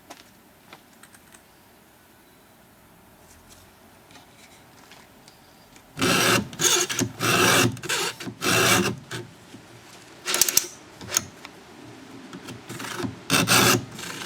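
Round file in a chain filing guide frame rasping across a chainsaw chain's cutter teeth in push-pull strokes. A few light clicks come first; the run of strokes starts about six seconds in.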